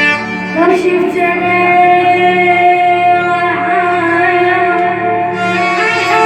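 Arabic song with a singing voice holding a long, wavering note over instrumental backing, then moving on to further drawn-out notes.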